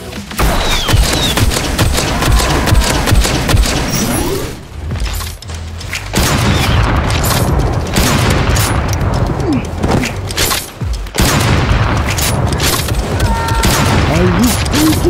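Rapid volleys of shot-like cracks and booms laid over background music, as in an edited blaster battle. The barrage eases off briefly about four and a half seconds in and again near eleven seconds.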